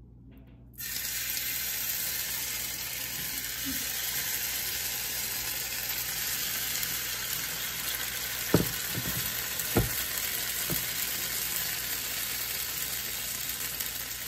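Raw-rice and vegetable batter sizzling in hot oil in a small nonstick frying pan: the sizzle starts suddenly about a second in as the batter hits the pan, then runs steadily. Two short knocks come a little past the middle.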